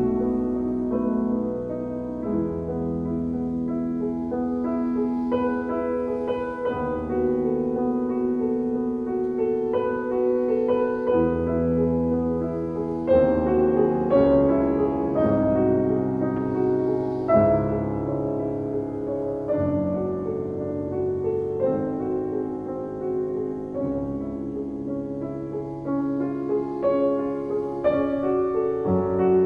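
Solo grand piano playing a classical piece, with sustained bass notes and chords under a melody. The playing grows louder about halfway through.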